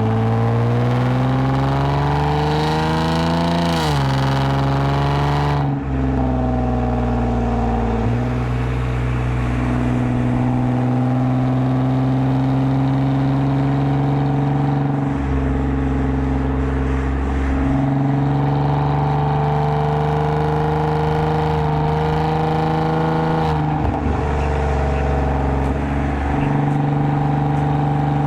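2010 Lexus IS250 AWD's 2.5-litre V6 running through a full aftermarket exhaust with valved mufflers. It pulls up through the revs for about four seconds, drops in pitch at a gear change, then cruises at fairly steady revs with small rises and falls.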